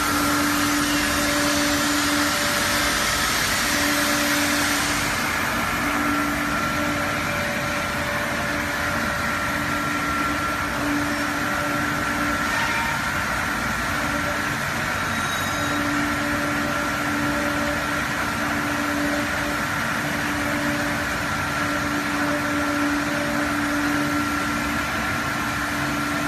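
Automatic glass bottle washing machine running: a steady machine hum and hiss with a low tone that cuts in and out every few seconds. The high hiss eases off about five seconds in.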